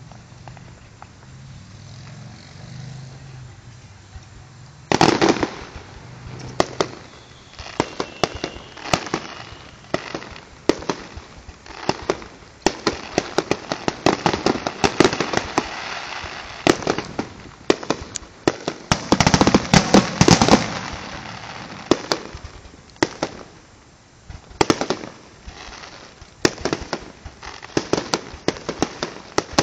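Aerial fireworks bursting: a quiet stretch, then from about five seconds in an irregular run of sharp bangs with crackling between them, thickest about two-thirds of the way through, easing briefly before more bangs follow.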